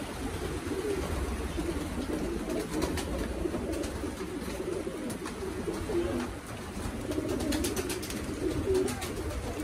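Many racing pigeons cooing together in a loft, a continuous warbling murmur, with scattered light clicks and taps through it.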